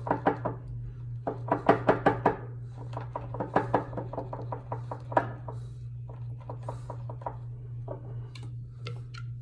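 Shaving brush whipping soap lather in a shave scuttle: runs of quick, wet strokes, with short pauses between runs. The soap is a little too wet and is being worked until the lather thickens.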